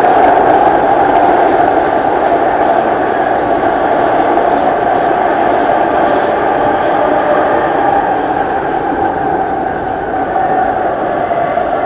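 Singapore MRT train running, heard inside the carriage: a loud, steady rumble and hum of wheels on rail. A hissing upper layer fades away about nine seconds in, and the sound eases slightly toward the end.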